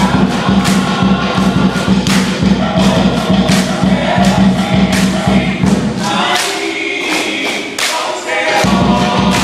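Samoan siva song: a group singing together over a steady thumping beat. About two-thirds of the way in, the beat drops out for a couple of seconds, leaving only the voices, then comes back.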